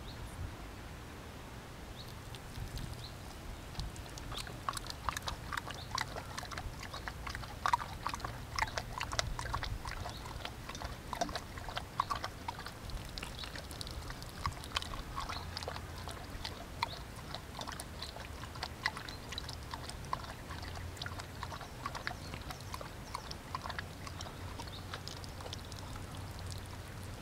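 Border Collie lapping water from a thin stream running from an outdoor tap, with many quick, irregular wet laps and splashes starting about two seconds in. The water also trickles and splashes onto a metal drain grate below.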